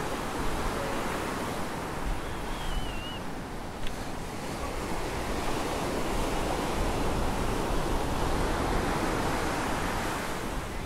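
Ocean surf breaking and washing up a sandy beach, a steady rushing wash that swells louder in the second half, with wind rumbling on the microphone.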